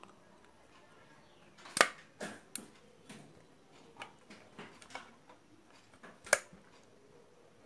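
Sharp clicks and taps from hands handling the metal parts and sliding bed plate of an industrial flatlock sewing machine. Two loud clicks come about two seconds and about six seconds in, with lighter ticks between.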